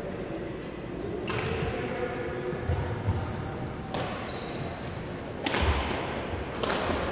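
Echoing badminton-hall sounds: a handful of sharp smacks of rackets on shuttlecocks, two brief high shoe squeaks on the wooden court floor, and a few dull thuds of feet on the floor.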